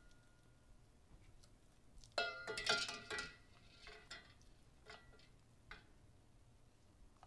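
Metal double-boiler pot clanking and ringing as a cup of coconut oil is knocked and scraped into it: a quick cluster of clanks about two seconds in, then a few light clinks.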